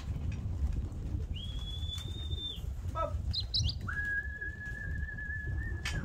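Two long, steady human whistles, a higher one and then a lower, longer one: a pigeon fancier whistling his young racing pigeons in to the loft. Between the whistles comes a brief flutter of pigeon wings, all over a low steady rumble.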